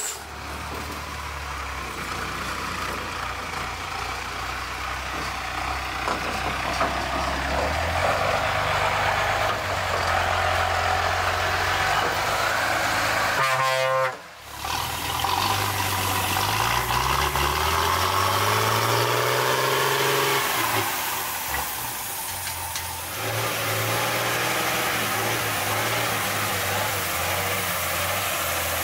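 Off-road trial truck engines working hard on a steep rocky slope, the revs climbing and falling as the trucks pull up the grade. A brief dropout about fourteen seconds in.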